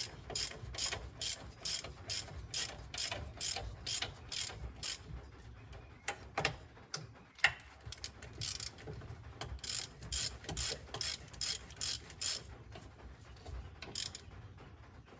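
Hand ratchet wrench clicking in quick, even runs of about three clicks a second, tightening the mounting bolts of a new final drive by hand. The clicking pauses briefly around the middle, where there is one sharp metallic knock.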